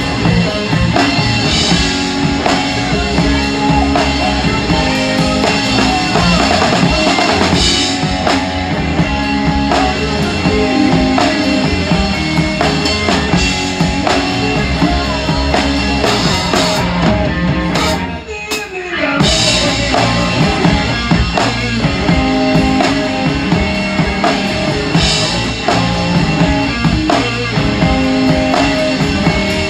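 A rock trio playing live, heard close up from beside the drum kit: a big kit with a 26-inch bass drum and large ride cymbals is driving hard, with guitar underneath. About two-thirds of the way through the band breaks for about a second, then comes back in full.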